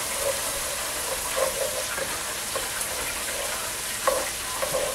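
Diced bell pepper and onions sizzling as they sauté in a pot, with a slotted wooden spatula scraping and clacking against the pot as they are stirred; a sharper knock about four seconds in.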